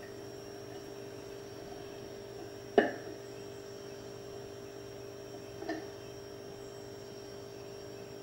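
Steady electrical hum of a nest-box camera, several pitches held level, with a sharp knock on the wooden box a little under three seconds in and a fainter knock near six seconds.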